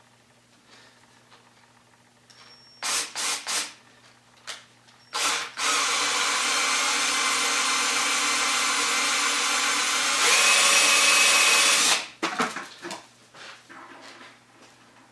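Power drill driving a wire stripper's drill adapter. It gives a few short trigger bursts, then runs steadily for about six seconds to strip the outer casing off 12 gauge wire. About ten seconds in it gets louder with a steady whine, then stops suddenly.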